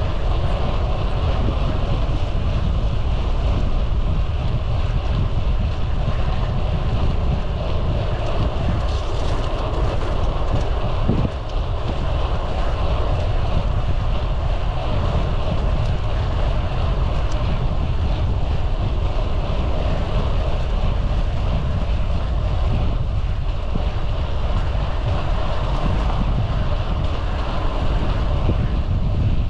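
Loud, steady wind rush and buffeting on the microphone of a moving bicycle, with road noise underneath.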